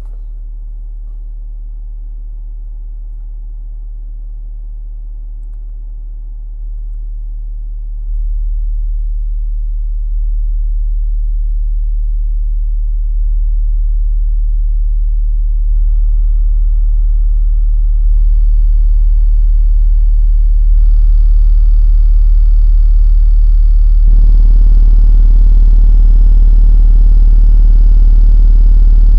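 A steady 38 Hz test tone from a Sundown SA-8 8-inch subwoofer in a sixth-order bandpass box, heard inside a car's cabin. It gets louder in steps every couple of seconds as the volume is raised, and a buzzing edge grows above the bass as it gets louder.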